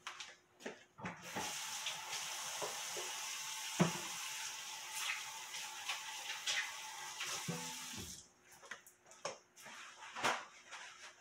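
Kitchen tap running into a sink for about six and a half seconds, a steady hiss that starts about a second in and shuts off near the end, with light clicks and knocks of handling around it.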